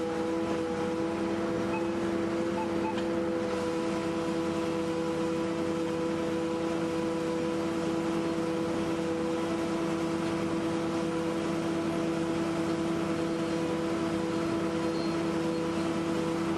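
Railway recovery crane's engine and machinery running at a steady speed, a constant droning hum while it holds a lifted wheel bogie.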